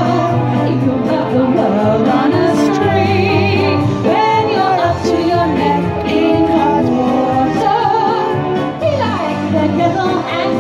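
A woman singing a 1940s wartime-style song into a microphone over a backing track, with sustained bass notes beneath her voice.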